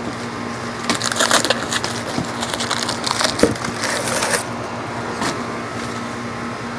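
Cardboard-and-tape TV packaging being handled: about three and a half seconds of crackling and rustling with sharp clicks, then a single click a little later.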